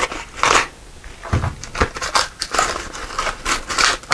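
Packaging crinkling and rustling in irregular bursts as the closet-rod bracket hardware is taken out of it, with two low knocks about a second and a half in.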